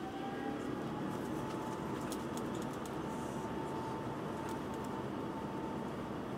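An Airbus airliner's jet engines at takeoff thrust, heard inside the cabin. The engine whine is still rising slightly in the first second, then holds a steady high tone over a constant rushing noise.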